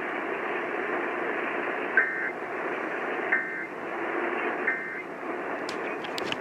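Three short EAS end-of-message data bursts, each a brief two-tone digital warble, spaced about a second and a half apart, over the steady hiss of a radio broadcast. They mark the close of the Emergency Alert System monthly test. A few sharp clicks come near the end.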